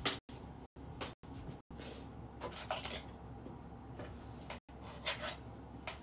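Faint room noise with a few brief knocks and rustles, the loudest at the very start and around 5 seconds in. The sound cuts out completely for a split second several times.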